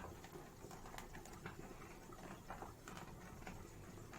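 Faint, irregular ticking and popping from a pot of rice and hot water heating on the stove toward the boil, over a low steady background hum.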